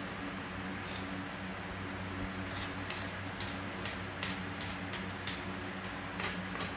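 A series of light, sharp knocks, irregularly spaced at about two a second, starting about two and a half seconds in, over a steady low hum.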